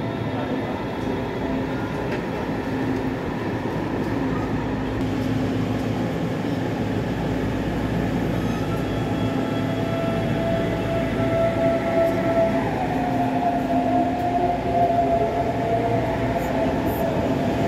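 Electric S-Bahn train running in the station, with steady motor whines over the rumble of the train. About three quarters of the way through, a whine rises in pitch as the train picks up speed.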